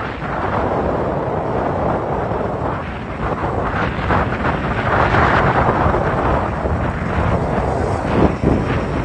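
Wind buffeting a phone microphone held by a moving bike rider: a steady, loud rushing noise with a heavy low rumble.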